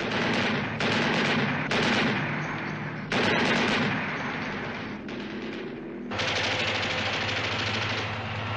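Heavy machine-gun fire: several loud bursts in the first three seconds, each trailing off with a long echo. From about six seconds in comes one long rapid burst over the steady drone of running vehicle engines.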